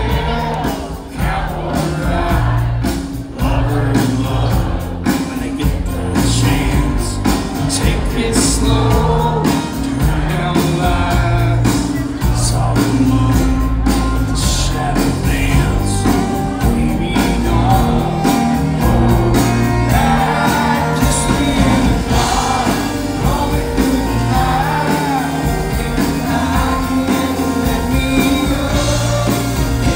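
Live country band playing loudly: acoustic and electric guitars, bass, drums and fiddle, with singing.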